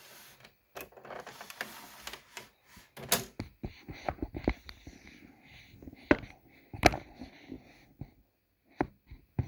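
Aiwa HV-M10SH VCR's tape transport mechanism working: a brief rushing whir, then a run of irregular mechanical clicks and sharp clunks, the loudest about seven seconds in.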